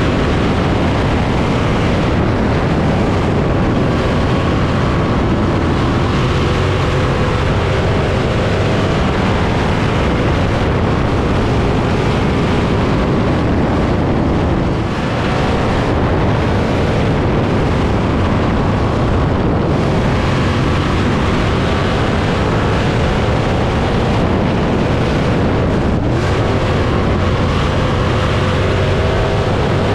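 A 305 winged dirt sprint car's V8 engine running hard at track speed, heard from the open cockpit with heavy wind rush over it. The engine note rises and falls through the laps and dips briefly about halfway through.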